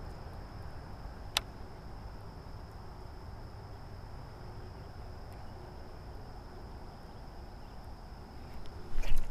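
Insects droning with a steady high-pitched tone over a low rumble of wind and water. A single sharp click comes about a second and a half in, and a louder burst of noise near the end.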